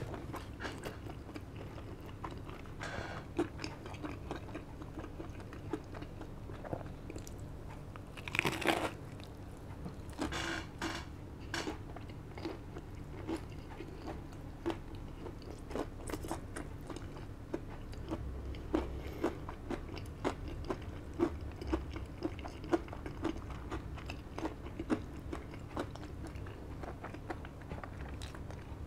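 A person eating a KFC Double Down's crispy breaded fried chicken fillets, close to the microphone: steady chewing with many small crunches and mouth clicks, and a few louder crunches about eight and ten seconds in.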